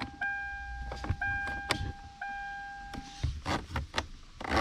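The car's electronic warning chime sounds about once a second and stops a little over three seconds in. Plastic clicks of the climate-control buttons being pressed run through it and come thicker near the end. No blower fan starts up, because the blower motor is dead.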